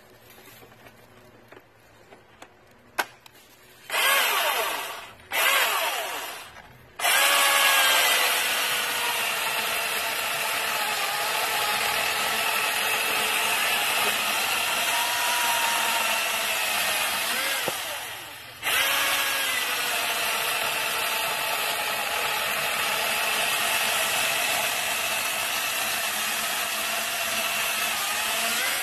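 Milwaukee M18 Fuel 16-inch brushless cordless chainsaw revved in two short bursts, then cutting through a log, the motor's whine dipping and wavering under load. It lets up briefly about two-thirds of the way in, then cuts again.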